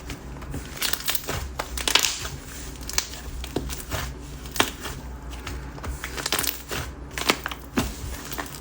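Thick whipped-texture 'whip chew' slime being stretched and squished by hand, making irregular crackles and pops.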